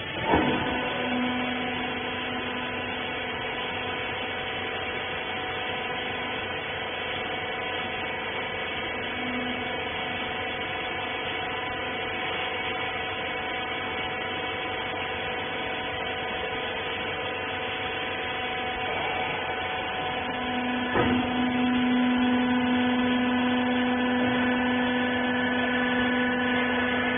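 Hydraulic rag baler's power unit running with a steady, even hum. A click just after the start sets it going, and a second click about 21 seconds in makes the hum louder and stronger in its low tone, as the press changes stroke or comes under load.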